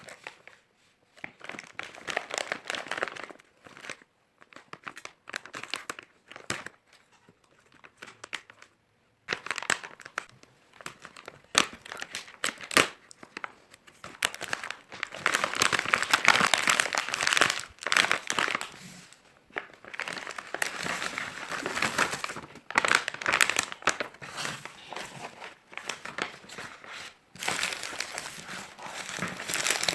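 Dairy Milk chocolate bar wrappers being handled and unwrapped: irregular plastic-and-foil crinkling and crackling with small clicks. It is sparse at first, then denser and louder from about ten seconds in.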